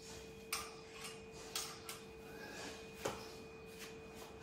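Metal curtain rod and its fittings clinking as a curtain is adjusted on the rod: about five light, irregular clinks over a faint steady hum.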